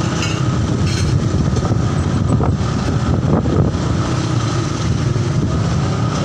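Large tour bus's diesel engine running close by as the bus pulls out, a loud low rumble that swells a little around the middle.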